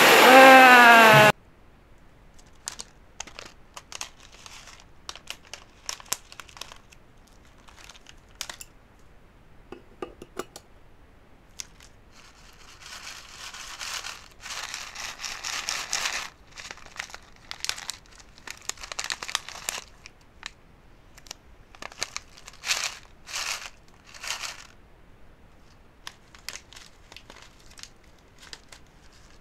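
Crinkling and rustling, like a paper or plastic bag being handled, broken up by scattered light clicks and taps, in a small room. About a second in, a loud sound with falling pitch cuts off suddenly.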